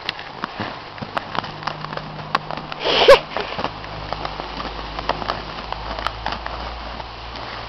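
A puppy chewing and tearing at a torn yellow plastic ball: a steady run of small plastic crackles and snaps. About three seconds in there is one short, louder squeak.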